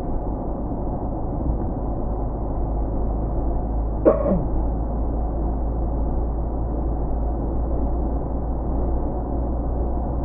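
Steady rumble of a car driving, with road and engine noise at an even level. About four seconds in, a brief sound falls quickly in pitch.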